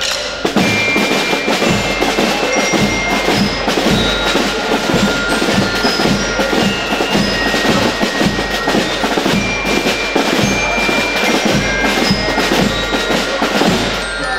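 Drum band playing: snare drums struck in a fast, steady rhythm together with ringing, bell-like mallet-percussion notes, the whole band coming in about half a second in.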